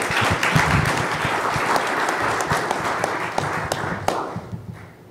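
Audience applauding, dense clapping that dies away about four seconds in.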